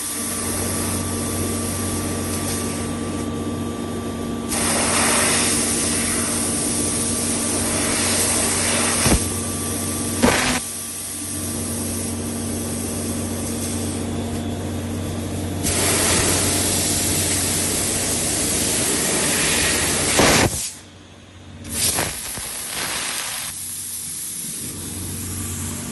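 CNC laser cutting machine cutting 3 mm aluminium sheet: a steady machine hum under a loud hiss, typical of the cutting-head assist gas, that starts and stops in stretches as the head moves between cuts, with a few sharp clicks.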